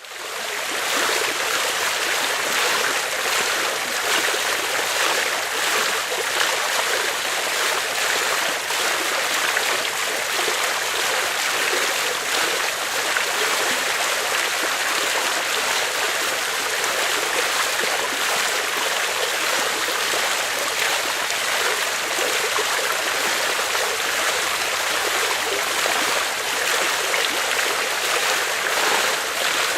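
Medium-size water fountain running: a steady splashing of falling water, fading in over the first second.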